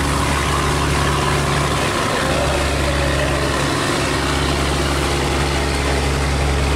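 Boat engine running steadily, a loud, even low hum that does not change.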